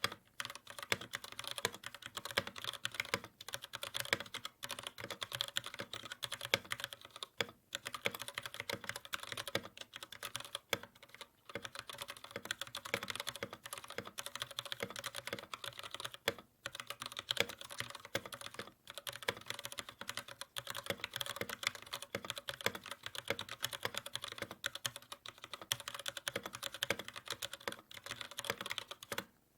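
Continuous fast typing on a mechanical keyboard fitted with Greetech Red linear switches, a Cherry MX Red clone: a dense clatter of key presses bottoming out, with a few brief pauses. The switches sound average, with hints of scratchiness.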